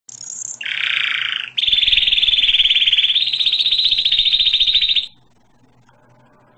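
High-pitched animal trills, one after another: a short very high trill, a lower one, then a long rapid pulsing trill lasting about three and a half seconds that cuts off about five seconds in, leaving only a faint low hum.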